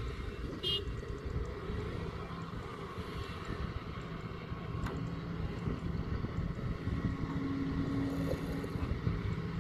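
Kobelco SK140 excavator's diesel engine running with a steady low rumble and hum as it dumps a load into a dump truck and swings back to dig. A brief high chirp sounds about a second in, and a single knock near the middle.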